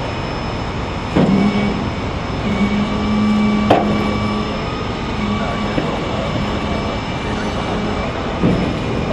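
Steady vehicle noise with a low hum that sets in about a second in and holds for several seconds, and two sharp clacks, about one and four seconds in.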